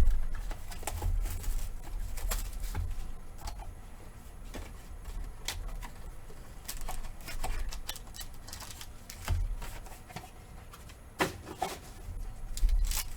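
Hands opening a sealed box of football trading cards and handling the packaging and cards: scattered small clicks, taps and rustles of cardboard and wrapper, with a low rumble underneath.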